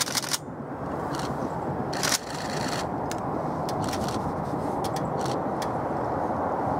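A train running past: a steady rumble of wheels on rail, with scattered sharp clicks and a brief knocking about two seconds in.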